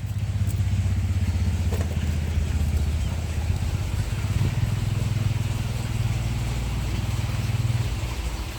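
An engine running close by: a steady low throb with quick, even firing pulses, easing slightly near the end.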